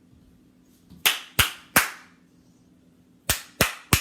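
Hands clapping: three sharp claps about a second in, then three more near the end.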